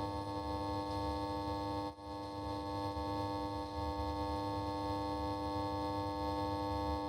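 Sustained synthesizer drone: several steady held tones over a low rumble, dipping briefly about two seconds in.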